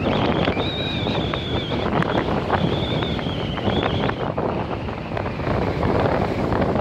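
Strong wind buffeting the microphone over choppy, storm-driven waves washing against rocks. A high wavering whistle sounds through the first four seconds, then stops.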